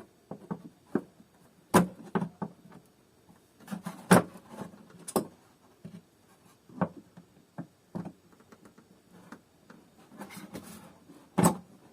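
Plastic clicks and knocks from a Kärcher DS5500 vacuum cleaner's housing being handled and worked at to release its squeeze-tab clips: irregular sharp knocks with quiet in between, the loudest about two, four and five seconds in and again near the end.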